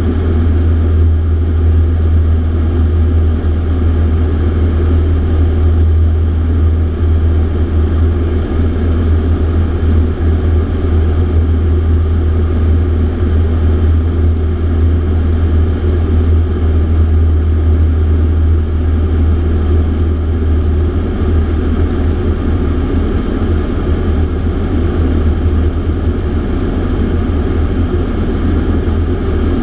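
Piper PA-28 Archer II's four-cylinder Lycoming engine and propeller droning steadily in flight, heard from inside the cabin.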